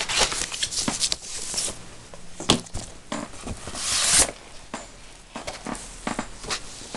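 Handling noises of a vinyl LP being pulled out of its sleeve: irregular rustling and light clicks, with one longer swish about four seconds in.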